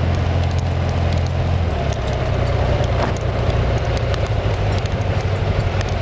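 BMW boxer flat-twin motorcycle engine running on the move, its note shifting about two seconds in, with wind rushing past and a light rattle of small clicks throughout.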